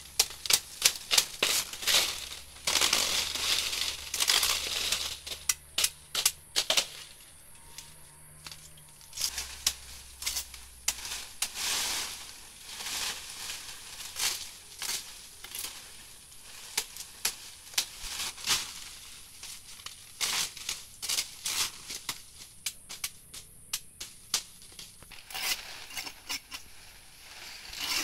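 Salak palm fronds being cut off with a blade and pulled from the clump: irregular sharp cracks and crunches in clusters, with rustling of dry, spiny leaves.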